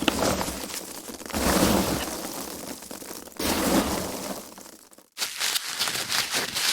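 Foam packaging being handled and crushed, a dense run of fine crackling. It comes in swells that start loud and fade, about every one to two seconds, with a brief break about five seconds in.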